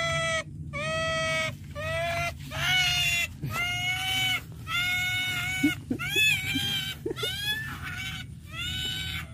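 Pet otter calling over and over: about nine high-pitched squealing calls, each under a second long and about a second apart, a few wavering in pitch. These are the calls of a hungry otter.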